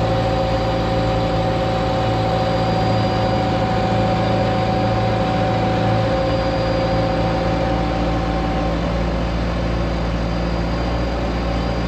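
Diesel engine of heavy earthmoving equipment, most likely the tile-plow bulldozer, running steadily. A whine over the engine stops about nine seconds in.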